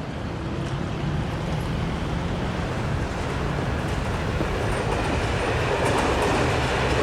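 Steady rumbling vehicle noise with a low hum, slowly growing louder.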